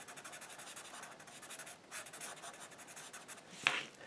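Felt-tip marker scribbling on paper in quick back-and-forth strokes, filling in a black area. The scribbling thins to a few separate strokes, then one louder, sharper scrape near the end.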